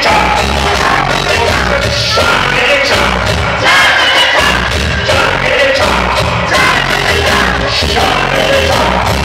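Loud music with a heavy, steady bass beat played through a sonidero sound system, with a man's voice shouting into a microphone over it.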